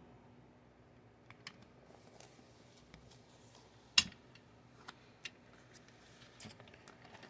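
Quiet handling of a paper planner: scattered light ticks and taps, with one sharp click about four seconds in.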